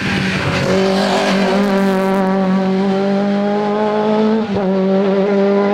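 Volkswagen hillclimb race car's engine running hard at high, steady revs as the car drives through a bend and away, with a brief break in the sound near the end before it picks up again at the same pitch.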